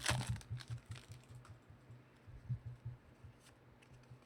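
Typing on a computer keyboard: quick, irregular key clicks, densest and loudest at the very start, then thinning out.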